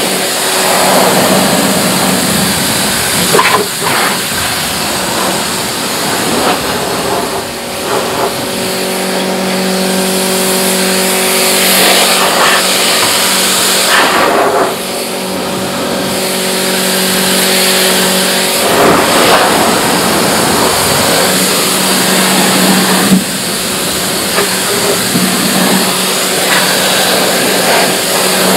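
Pressure washer spraying water into a car's front trunk: a steady hiss of the jet over the humming pump motor. The hum drops out briefly about two thirds of the way through, then starts again.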